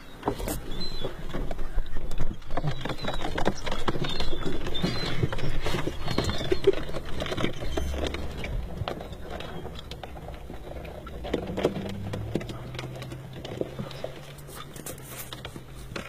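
Pigeons' feet tapping and scratching on a car's hood and windshield, heard from inside the car as irregular light taps.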